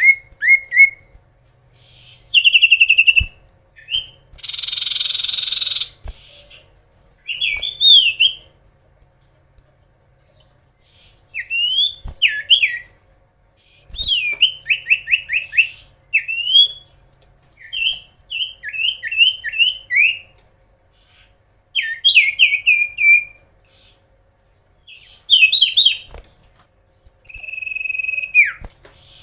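Common iora (cipoh) singing actively: repeated bursts of quick, sliding whistled notes with short pauses between them. About five seconds in there is one harsh, raspy note, and near the end a long held whistle that drops away.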